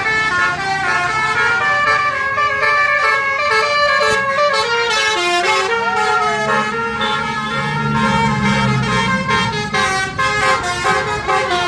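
Indonesian bus 'telolet' horn, a Basuri multi-trumpet horn set with roof-mounted and lower trumpets, playing a quick tune of stepped notes. A low rumble swells beneath it about eight seconds in.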